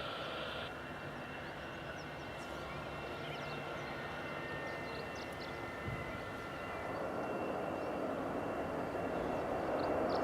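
Airliner engines running with a steady high whine, growing louder over the last few seconds as the aircraft nears.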